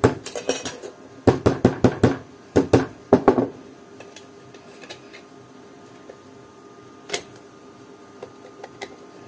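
Sharp metallic taps and clinks on a small transformer's laminated E-I steel core and its sheet-steel clamp cover as the core is tapped flush and the cover is fitted, in three quick bursts over the first three and a half seconds. After that only a few faint clicks, one clearer about seven seconds in.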